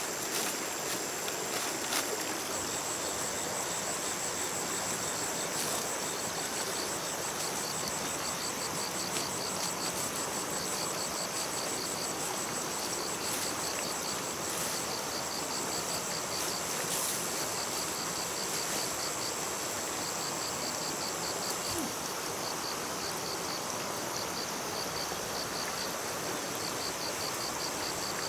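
Insects singing: a steady high-pitched trill, with runs of rapid pulsing chirps starting and stopping over it every few seconds, against a steady background hiss.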